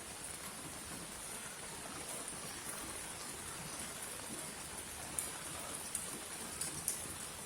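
Steady rain falling, an even hiss of many drops, with a few sharper individual drops splashing in the second half.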